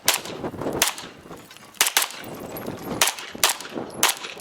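Canik Rival 9mm pistol firing about seven shots at an uneven pace, some in quick pairs and others nearly a second apart, as the shooter works through a stage.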